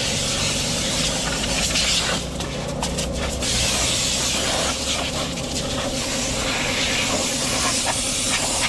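Compressed-air blow gun blowing a steady, loud hiss of air across a car's interior floor and seat to clear out dust, faltering briefly about two seconds in.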